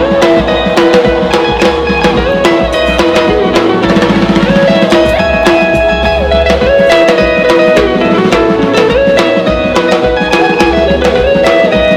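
Upbeat gospel music with a drum kit keeping a steady beat under guitar and sustained melody lines, with no words.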